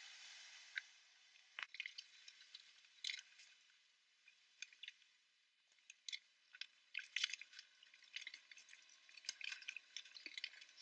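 Faint, scattered small clicks and taps as glue-coated wooden beams are handled and pressed together, with near silence between them.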